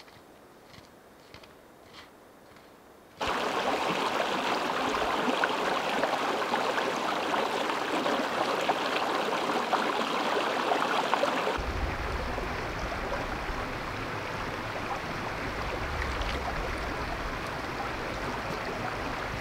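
A few faint footsteps and trekking-pole taps on a rocky trail, then a shallow mountain creek running over rocks, loud and steady. It starts suddenly about three seconds in, and about twelve seconds in it turns deeper, with a low rumble.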